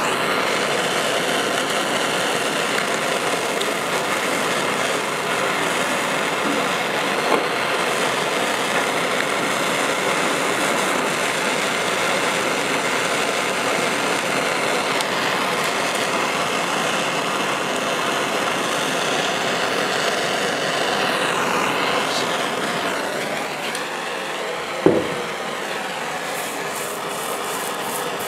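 Handheld gas blowtorch burning with a steady hiss as solder is flowed into a fitting on a steel motorcycle fuel tank. The hiss eases about three-quarters of the way through, followed by a single sharp knock, and near the end a wire brush starts scrubbing the hot soldered joint.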